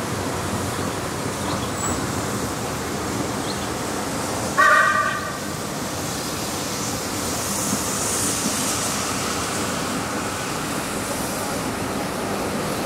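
Steady running noise of a steam passenger train moving along the line, heard from a carriage window. About four and a half seconds in comes a single short, high horn or whistle blast, the loudest sound here.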